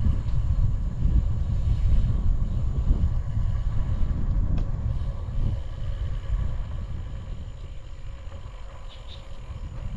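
Wind buffeting the microphone with road noise while a bicycle rides downhill, a loud, uneven low rush that eases off over the last few seconds.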